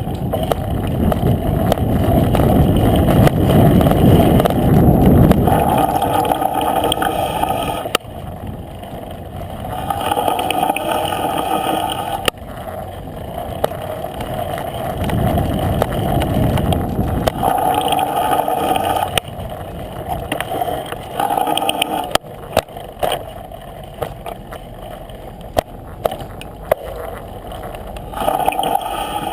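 Jamis Trail X2 mountain bike's front brake applied again and again, each application giving a weird, rough, uneven noise rather than a smooth one, along with rolling and rumbling noise and a few sharp clicks.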